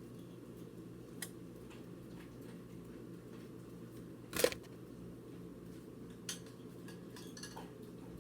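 Light clinks of cookware and utensils, with one sharp, loud clank about four and a half seconds in, over a steady low hum.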